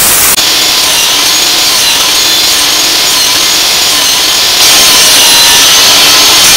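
Table saw running at full speed and cutting the corners off a teak board pushed through on a sled, a steady high whine over the noise of the blade in the wood. About four and a half seconds in it grows louder.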